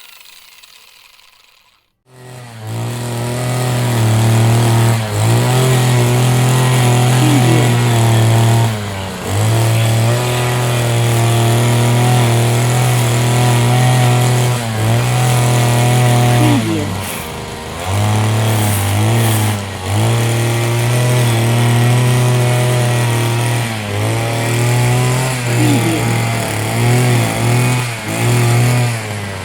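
Motor of a cutting machine running at a steady high pitch. Its revs dip briefly several times. It starts about two seconds in, after a short gap.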